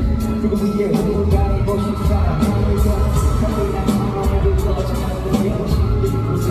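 Loud amplified pop or hip-hop music through arena speakers with a steady beat, recorded from the floor of the venue.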